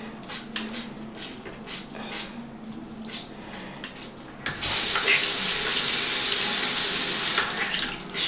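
A wet makeup sponge squeezed with soft, irregular squelches, then a tap runs steadily for about three seconds and shuts off.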